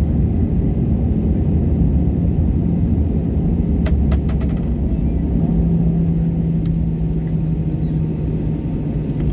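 Airbus A320 cabin noise after landing: a steady low rumble from the engines and the rolling aircraft, with a steady engine hum that grows stronger about halfway through. A short rattle of clicks comes about four seconds in.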